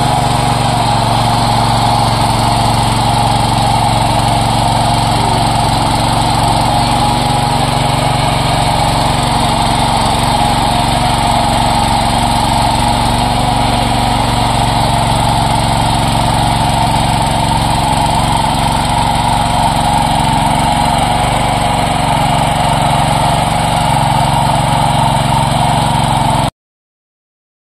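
A 7 hp power tiller's small engine running steadily at an even speed, with no change in revs. The sound cuts off abruptly near the end.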